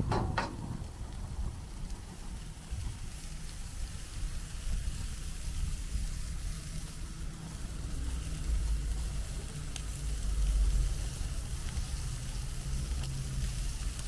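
Wagyu steaks sizzling on a gas grill's cast grates, a steady hiss, with a couple of metal clicks from the tongs right at the start. A low rumble runs underneath and swells about halfway through.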